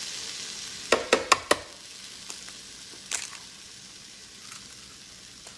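Food sizzling on the hot plate of an electric waffle maker, with four quick sharp taps about a second in and another click about three seconds in as an egg is cracked into the plate. The sizzle is stronger at first, then settles to a fainter steady hiss.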